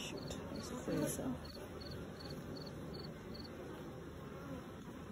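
Honeybee colony humming steadily from an open hive, with a few light clicks in the first second or so.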